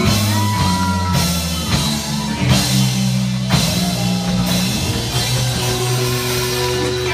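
Live rock band playing an instrumental passage: a steady drum beat over a bass line, with a few held melody notes on top.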